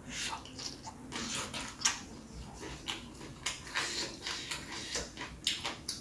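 Close-miked chewing of a mouthful of rice and raw long beans with peanut sambal: irregular crisp clicks and wet mouth noises.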